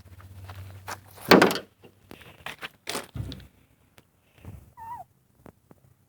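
A series of knocks and thumps, the loudest about a second in, with a short wavering squeak near the end.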